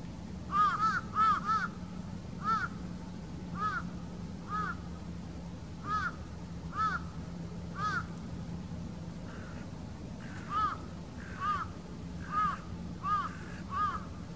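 A crow cawing again and again, short arched caws in loose runs of one to three, about fifteen in all, with a pause of a couple of seconds past the middle. A steady low hum runs underneath.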